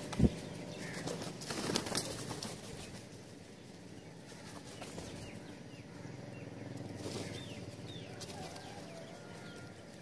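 House crows' wings flapping as they take off from the feeding bowls, with a sharp low thump just after the start and the loudest flutter about two seconds in. A few faint short bird calls come near the end.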